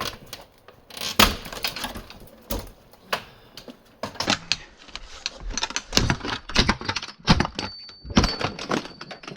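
RV cupboard woodwork being broken apart by hand and tool: a run of irregular knocks, cracks and splintering, busiest in the second half, with a brief high squeak near the end.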